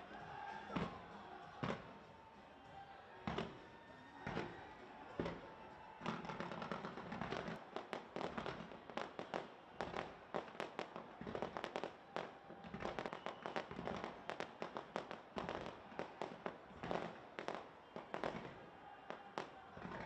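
Fireworks exploding in a display. There are scattered single bangs at first, then a dense, rapid volley of bangs and crackles from about six seconds in.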